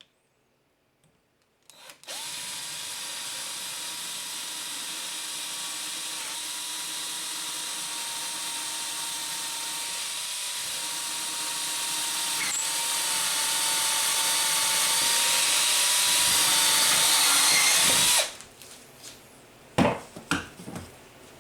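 Electric drill boring a mounting hole, running at a steady pitch for about sixteen seconds and slowly getting louder as it cuts, then stopping abruptly. A few knocks follow soon after.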